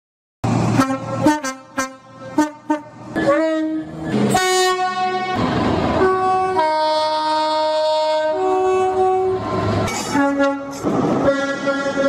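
Two-tone train air horns: a quick run of short toots, then longer held blasts, one long sounding that steps from one note to the other about two seconds in.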